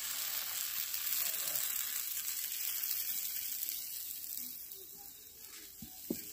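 Thin rice-flour and milk crepe batter sizzling in hot oil in an iron kadai as it sets, the sizzle fading after about four and a half seconds. A sharp click near the end.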